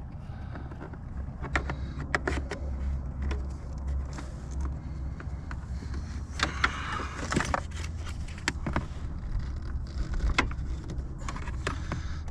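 Scattered clicks and knocks of plastic and metal from a screwdriver and hands working plastic retaining clips loose under a Jeep dashboard, with a longer scraping rustle about halfway through. A low steady hum runs underneath.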